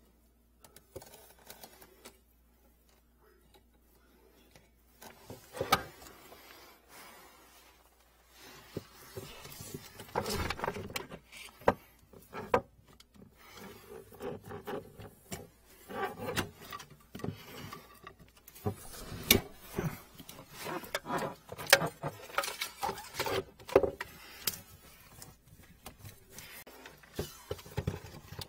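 Irregular clicks, knocks and rustles of hands working a flexible metal drain hose, plastic sheeting and pliers at a blocked kitchen-sink drain. It is faint for the first few seconds, then the handling noise comes in quick clusters.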